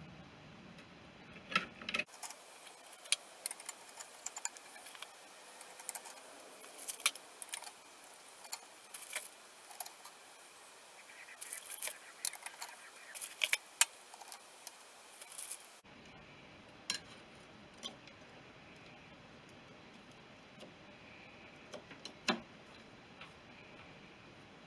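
Small metal parts clinking and clicking irregularly as they are handled and fitted, typical of steel clutch plates and parts going onto a motorcycle clutch. The clinks come thick and fast for most of the first two-thirds, then thin out to a few separate clicks.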